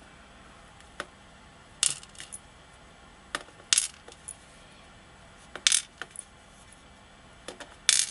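Small pin-tumbler lock pins falling out of a lock core onto a hard surface, one at a time, as light metallic clinks spaced a second or two apart, some in quick pairs.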